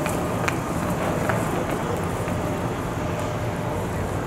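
Wheels of a rolling suitcase running over sidewalk paving slabs: a steady rumble with a few faint clicks.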